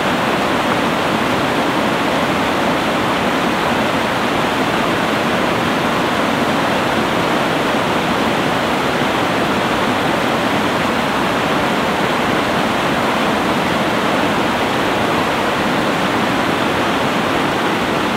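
Fast mountain river rushing through a log jam: whitewater making a steady, even rush of noise with no letup.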